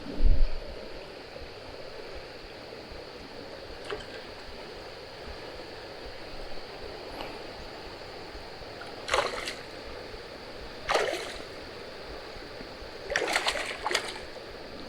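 Steady rush of river water, with a hooked bass splashing at the surface a few times in the second half. There is a heavy thump just after the start.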